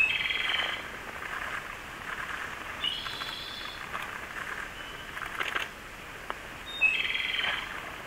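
Japanese robin singing three songs a few seconds apart, each a sharp high note followed by a rapid rattling trill.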